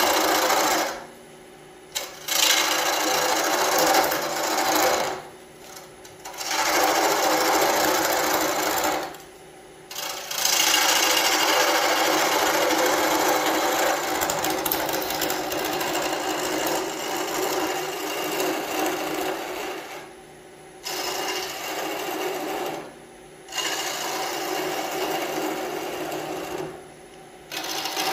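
Wood lathe with a gouge cutting an off-center Nargusta scoop blank: a loud, fast, rhythmic rasping chatter from the interrupted cut on the lopsided spinning wood. The cutting stops briefly about six times, and only the lathe's running hum is left.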